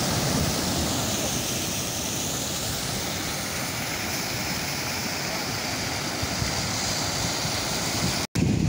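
Sea surf breaking and washing over rocks at the foot of a cliff: a steady rush of churning water, cutting out for a split second near the end.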